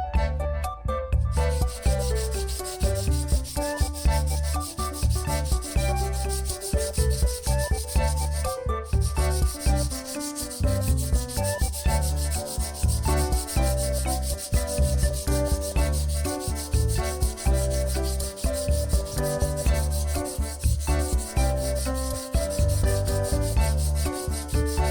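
Steady abrasive sanding noise, which drops out briefly about nine seconds in. A melodic tune with a repeating bass beat plays under it.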